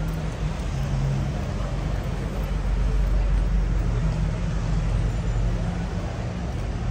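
Steady road traffic: a low rumble of engines and tyres with an engine hum, a little louder about three seconds in.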